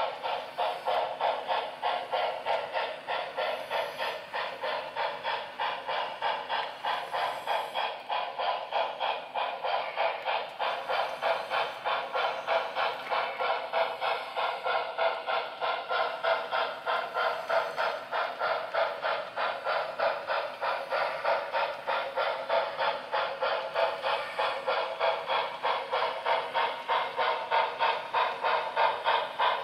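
Model steam locomotive's sound decoder chuffing in a quick, steady rhythm through its small onboard speaker as the engine hauls a train.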